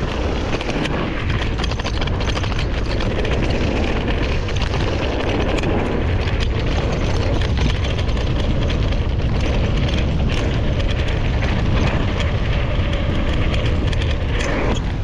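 Mountain bike riding down a dirt flow trail: wind rumbling steadily on the mounted camera's microphone over the hum of tyres on dirt, with a constant patter of small clicks and rattles from the bike.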